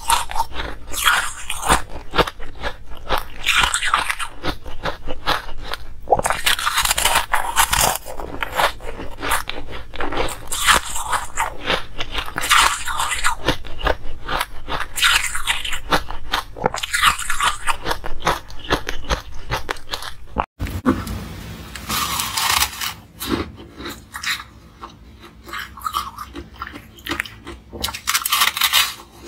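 Close-miked crunching of hard frozen ice being bitten and chewed, the crackly crunches coming in dense runs. About two-thirds through the sound drops out for a moment, then the crunching resumes, sparser and a little quieter.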